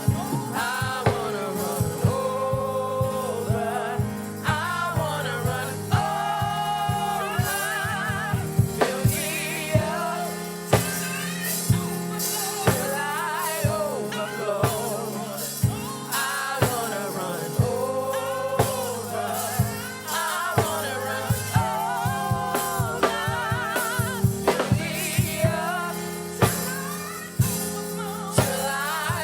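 Gospel worship music: singers holding wavering sung lines over a live band with a drum kit keeping a steady beat.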